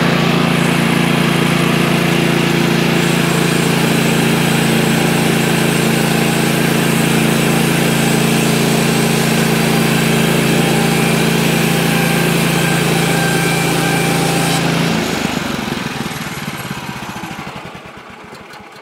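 Woodland Mills HM130 Max bandsaw sawmill's gas engine running steadily while the blade is pushed through a small log. About fifteen seconds in, the engine shuts off and the sound dies away over a few seconds.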